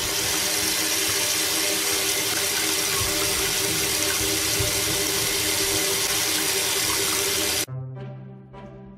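Kitchen faucet running full into a stainless steel sink, water pouring down the just-unclogged drain to test whether it backs up. It cuts off suddenly near the end, giving way to light background music.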